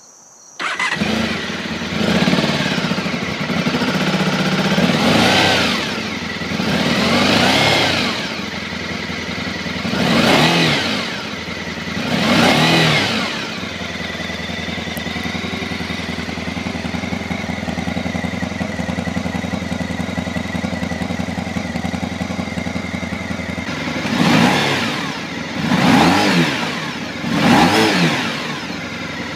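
Honda RC30's 750 cc V4 engine being revved five times in quick succession, then idling steadily for about ten seconds, then revved three more times near the end.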